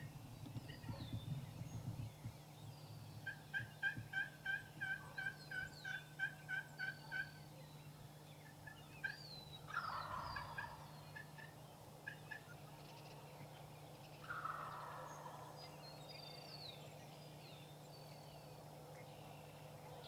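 Wild turkey calling: a run of about a dozen evenly spaced yelps, then two gobbles about four seconds apart, with small songbirds chirping throughout.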